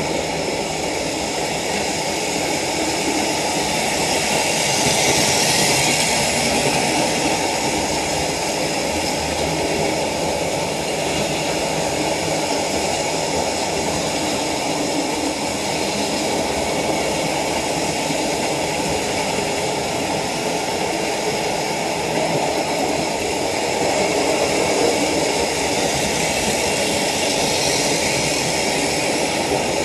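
Hornby Dublo OO-gauge model diesel locomotives running on the layout: a steady whirr of their electric motors over the rumble of wheels on the rails. It grows louder about five seconds in, and again near the end as the Class 55 Crepello's Pullman train passes close.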